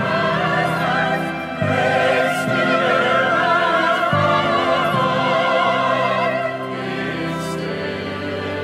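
A hymn sung by voices with vibrato over an instrumental accompaniment. Long held bass notes change about every two seconds.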